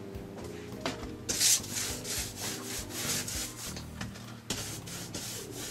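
A paintbrush scrubbing thinned latex paint onto a plaster scenery surface in quick, repeated scratchy strokes.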